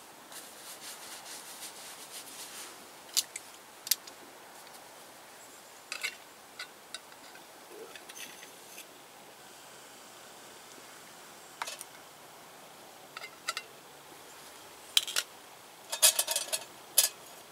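Scattered metal clicks and clinks from multitool pliers gripping a hot, open tin can and lifting it off a small camp stove, with a quick run of louder clinks near the end.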